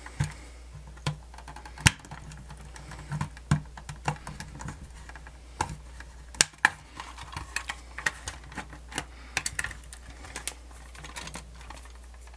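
Irregular plastic clicks and knocks from the hard plastic case of a Sony D-142CK Discman CD player being handled, turned over and worked open, its screws already out. The loudest knocks come about two seconds in and just past the middle.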